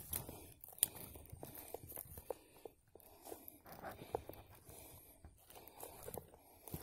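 Faint, irregular footsteps crunching and snapping on the dry forest floor.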